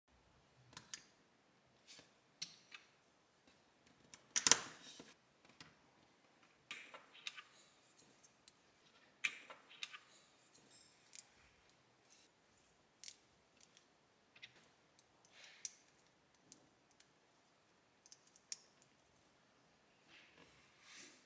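Black LEGO plastic bricks being handled and pressed together: irregular small clicks and rattles, the loudest about four and a half seconds in.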